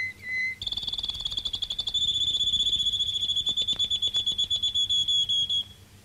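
Canary singing: a few short whistled notes, then, about half a second in, a fast trill that runs into a long, very rapid rolling trill held on one high pitch, breaking off shortly before the end.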